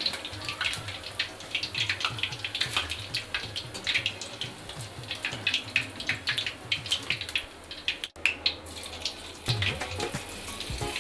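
Soya chunk pakoras deep-frying in hot refined oil in a kadhai: a steady sizzle dense with small crackling pops.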